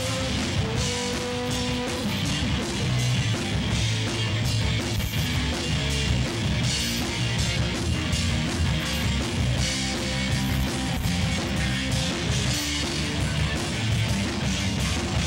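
A rock band playing: electric guitar and bass over a drum kit, loud and continuous, with a steady beat.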